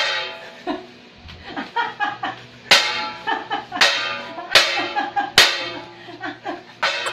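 Metal pot lids clashed together like cymbals, six loud clangs at uneven intervals, each ringing on for a moment after the strike.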